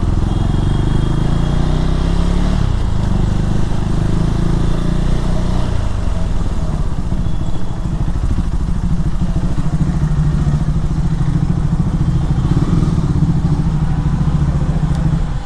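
KTM Duke 390 motorcycle's single-cylinder engine running steadily.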